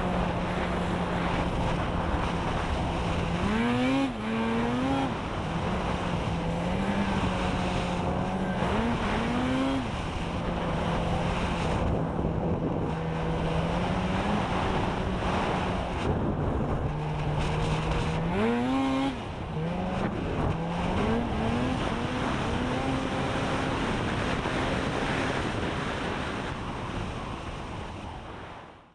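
Polaris Switchback Assault snowmobile's two-stroke engine running under way at a steady pitch, with several throttle surges that rise and fall in pitch: about four seconds in, around nine seconds, and twice near the twenty-second mark. The engine sound fades out at the end.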